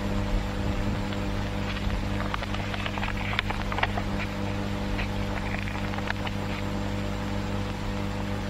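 Steady low electrical hum with a faint hiss underneath, typical of an old film soundtrack, with a few faint scattered clicks and short rustles.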